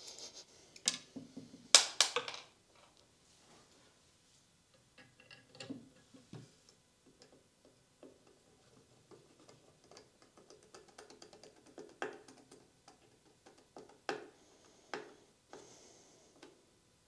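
Wooden drawer parts and a metal swing-out drawer fitting being handled and fitted together by hand: sharp clicks and knocks, the loudest cluster about two seconds in, then scattered light taps and clicks.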